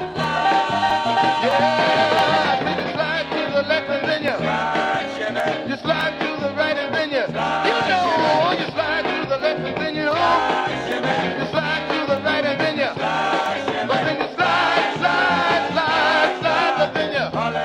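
Early-1960s rock and roll dance music by a vocal group, playing from a stereo vinyl LP, with a steady beat.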